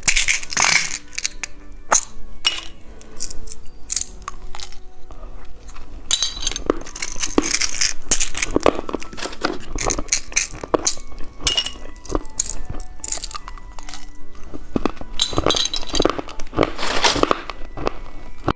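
Close-up crinkling, clicking and tapping of a plastic-packaged novelty candy toy being handled and opened, over soft background music.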